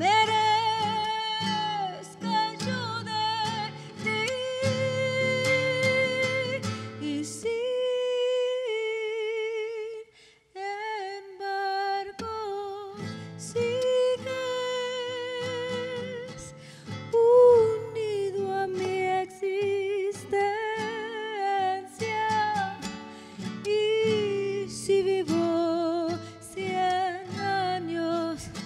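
A woman singing a long wordless melody with vibrato, humming-like, over a strummed classical acoustic guitar. About seven seconds in the guitar stops and the voice holds a note alone, breaks off briefly, then voice and guitar come back together.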